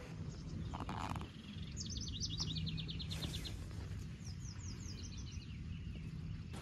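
A songbird singing twice: each time a rapid run of short, high notes slurring downward. Under it runs a steady low hum and rumble.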